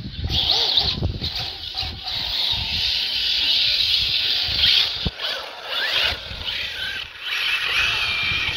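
Radio-controlled car's electric motor and drivetrain whining as it drives at speed, with short rising whines as it accelerates, over wind buffeting the microphone.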